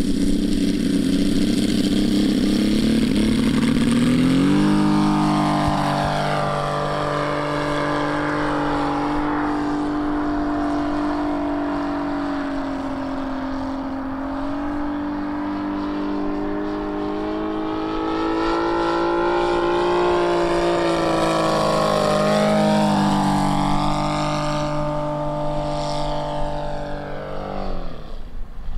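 Engine of a 1/3-scale radio-controlled Sopwith Pup biplane model, opening up to high throttle about four seconds in for its takeoff and then running steadily in flight, its pitch wavering slightly as it circles. Near the end the pitch drops sharply as the engine is throttled back or the model flies past.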